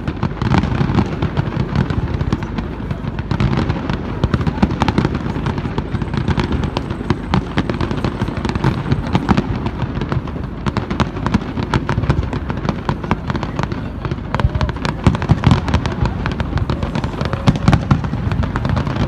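Fireworks display: a dense barrage of aerial shells, many bangs and crackles in quick succession with no pause.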